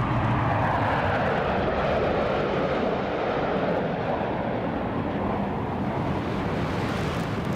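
Jet roar of a formation of MiG-29 fighters, twin-engine jets, flying past overhead. The roar drops in pitch over the first few seconds as the jets go by, then carries on steadily.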